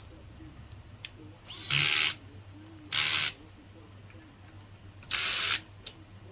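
DeWalt cordless drill driver run in three short bursts of about half a second each, tightening a small screw with its clutch set.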